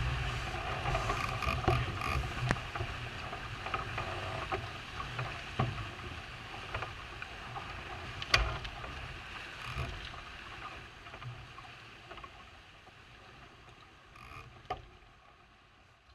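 Onboard sound of an Elliott 6 Meter sailboat under way: wind buffeting the microphone and water rushing past the hull, with scattered clicks and knocks from the rigging and deck fittings, the loudest about eight seconds in. It all fades out gradually over the last several seconds.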